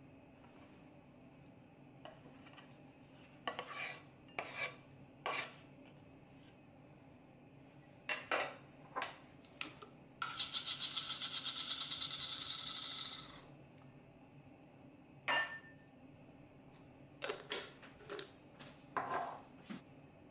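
A spice mill grinding for about three seconds near the middle: a continuous fast, scratchy rasp. Before and after it come short clatters and rustles of ingredients being set on a plate.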